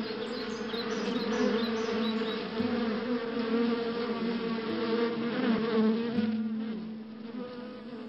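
Honeybees buzzing around an open hive: a steady, slightly wavering hum that eases off a little near the end.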